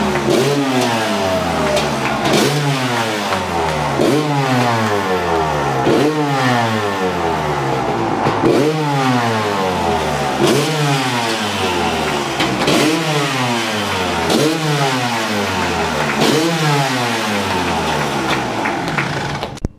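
Freshly rebuilt Kawasaki KX250 single-cylinder two-stroke dirt bike engine running and being revved in repeated throttle blips, about one every two seconds. Each rev climbs sharply in pitch and then falls back. The sound cuts off suddenly near the end.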